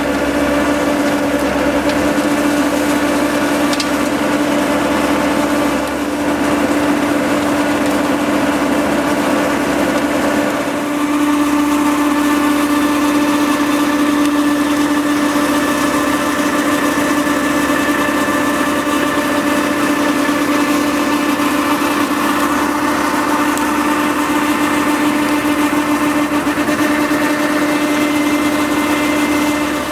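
Engine of the machine driving a Scorpion 1500 mulcher, running steadily with a constant pitched hum that grows a little stronger about eleven seconds in.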